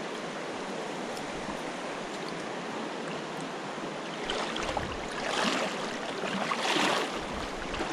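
River rapids running steadily into a pool, an even rushing hiss. A few louder swells of noise come in the second half.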